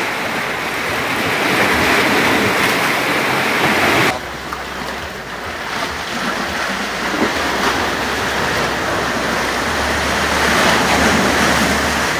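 Fast-running tidal sea water washing and rushing, a steady loud rush of noise that changes tone abruptly about four seconds in.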